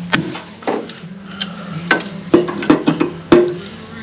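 Hand tools clinking and knocking on metal: a ratchet and bolts working the lug bolts of a walkie stacker's drive wheel, with about eight irregular sharp metallic knocks, each ringing briefly.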